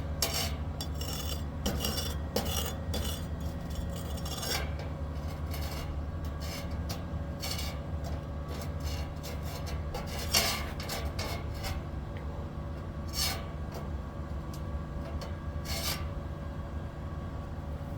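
Stick (arc) welder humming steadily, with irregular crackling and scratching as the electrode strikes and holds an arc on steel plate.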